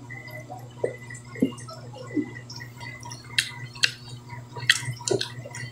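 Eating sounds at the table: wet mouth smacks and chewing as shrimp and fish are eaten, with a few sharp clicks in the second half.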